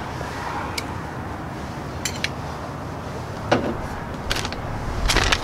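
A metal spoon clicking and clinking against a cast-iron Dutch oven as chopped garlic is spooned into the sauce: a few separate sharp clicks, the loudest about three and a half seconds in, over a steady low background rumble. A quicker run of clicks starts near the end.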